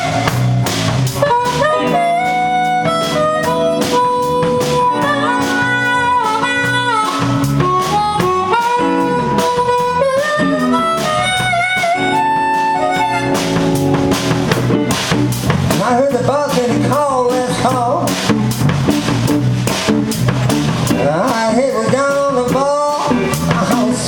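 Blues band playing live, led by an amplified harmonica blown into a vocal microphone, with long held and bent notes. Electric guitar, electric bass and a drum kit keep a steady beat behind it.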